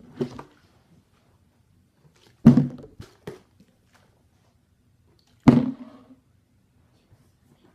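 Plastic water bottle being flipped and landing on a hard surface: a thud about two and a half seconds in followed by two lighter knocks, then another thud about five and a half seconds in as it lands standing upright.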